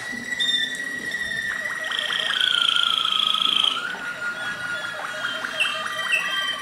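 Malinois Waterslager canaries singing: a long, steady whistled note, then a louder, higher note held for nearly two seconds about two seconds in, over rapid clicking trills, with short downward-sliding notes near the end.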